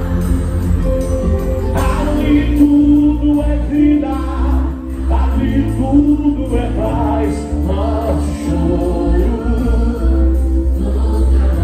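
A live gospel band playing loudly, with a singer over the bass and guitar.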